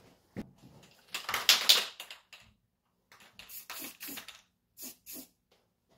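Clicks, light knocks and a scraping rustle as parts and tools are handled while fitting a hatch strut. The scrape about a second in is the loudest, followed by a string of short clicks and taps.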